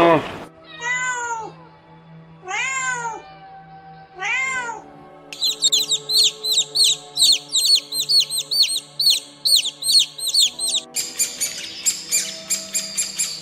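A domestic cat meows three times, each call rising and then falling in pitch. A fast, even run of high bird chirps follows for about five seconds, and a denser, harsher squawking takes over near the end. Soft background music plays underneath.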